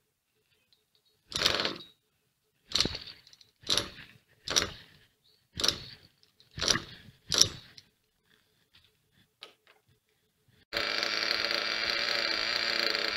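Small nitro glow engine of a 1/8-scale RC monster truck being cranked after a low-speed needle adjustment: about seven short sputtering bursts that die out, then it catches about eleven seconds in and runs steadily.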